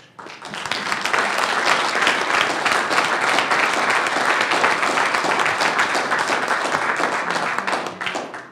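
Audience applauding: the clapping swells within the first second, holds steady, then dies away near the end.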